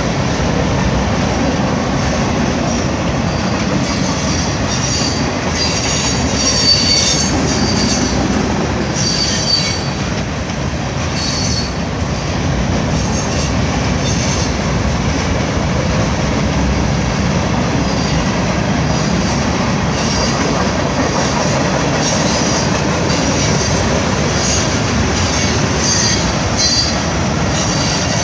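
A freight train of tank cars rolling past with a steady rumble of steel wheels on the rails. High wheel squeals come and go, mostly in the first half and again near the end.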